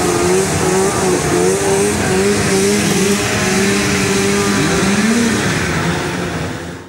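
Engines of 6x6 racing ATVs running hard around a dirt track, several engine notes wavering up and down, with one rising briefly about five seconds in. The sound fades out at the very end.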